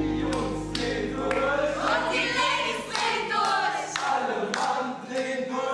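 Several voices singing together like a small choir over a music backing with a steady low tone.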